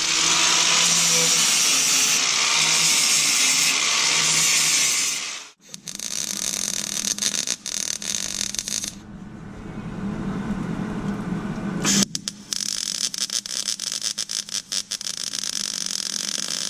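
Power drill running steadily for about five seconds, drilling holes through the sheet-steel cab corner and rocker panel for plug welds. After a short break come two stretches of crackling MIG welding as the holes are filled, with a brief pause about twelve seconds in.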